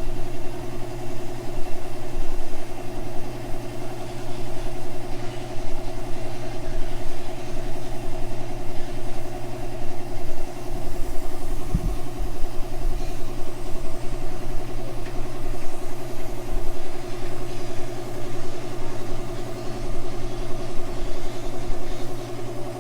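Electric air compressor running steadily, a constant droning hum, as it powers a paint spray gun. There is a brief low knock about halfway through.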